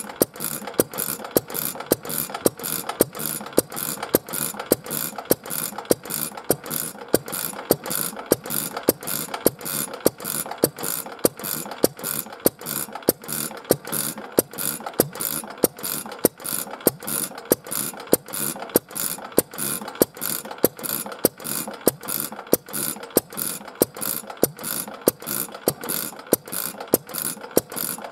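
Old single-cylinder AKITU 2.5 hp kerosene stationary engine running steadily: an even rhythm of sharp firing strokes with mechanical clatter between them.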